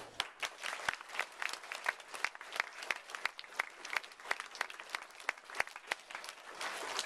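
Audience applauding, with individual claps standing out several times a second.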